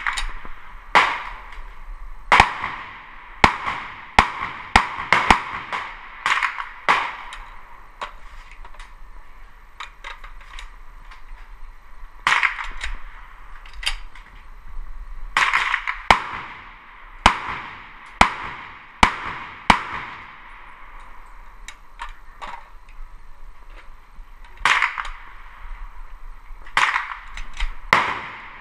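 Rifle shots from a VZ-58 Sporter semi-automatic rifle in 7.62x39mm with a short barrel. Many sharp cracks come in irregular strings, at times about two a second, with pauses between. Some are louder than others, and each has a short echo.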